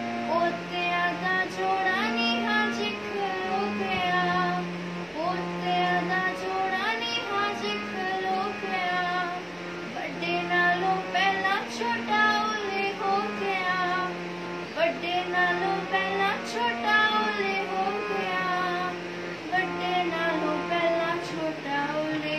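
A young girl singing solo, a slow melody with upward slides between notes, over steady held low notes of an accompaniment that shift in pitch every second or so.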